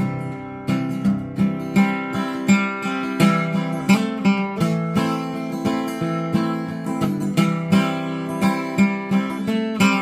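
Acoustic guitar strummed in a steady rhythm, playing an instrumental break of chords without singing.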